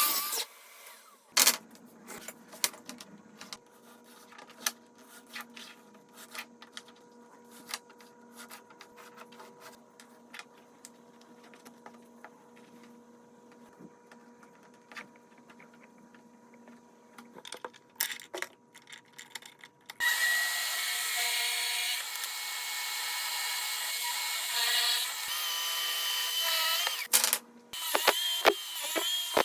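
Small clicks and knocks of wood and tools being handled. About two-thirds of the way through, an electric power tool starts and runs steadily with a high whine. It stops briefly near the end and starts again.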